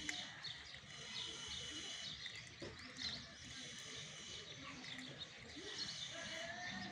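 Many small birds chirping, a dense, steady chorus of short chirps.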